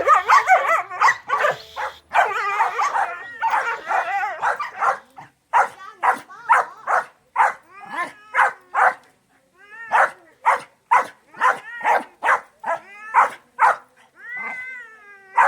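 Hunting dogs barking and yelping, several at once at first, then single high barks coming about two a second, with a longer drawn-out yelp near the end.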